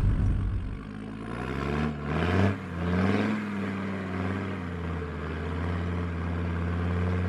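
Land Rover Defender Td5's five-cylinder turbodiesel engine pulling under load, its pitch rising twice within the first few seconds, then running steadily.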